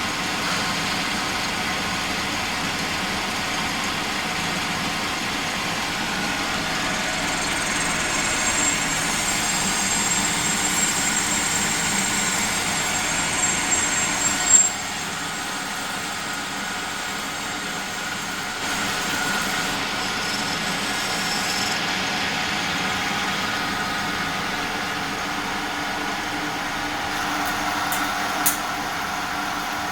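CNC lathe running, with a steady machine hum. A high whine comes in about a quarter of the way through and cuts off sharply with a click about halfway, and a lower whine carries on after it.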